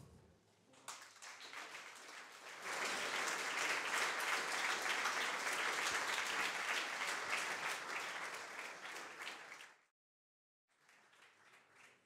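Audience applauding, light at first and swelling about three seconds in, then cut off suddenly near ten seconds.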